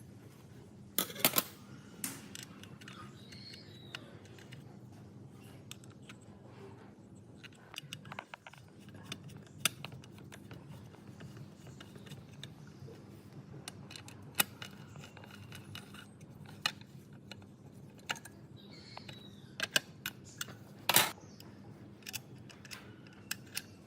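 Tools and small metal parts being handled, giving scattered sharp clicks and clinks, loudest about a second in and again near the end, over a steady low hum.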